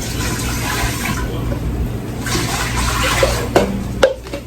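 Water running from a kitchen tap into a cooking pot, with two knocks near the end before the flow stops.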